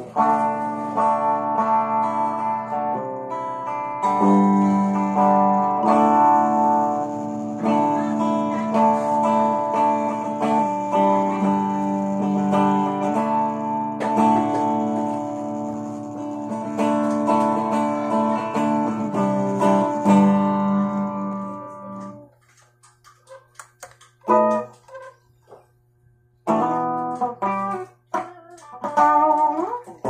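J-Craft Telecaster-style electric guitar played clean, with no effects, straight into a small 10-watt practice amp: ringing chords and single-note lines. About two-thirds of the way through the playing breaks into a few short, separate notes, then picks up again near the end. A low steady hum sits under the pauses.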